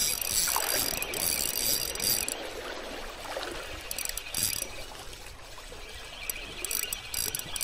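Spinning reel being cranked by hand, its gears whirring as line is wound in, in spells with short pauses.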